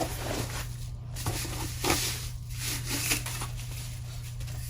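Cardboard box and packaging being opened and handled: irregular rustling and scraping with a few soft knocks, over a steady low hum.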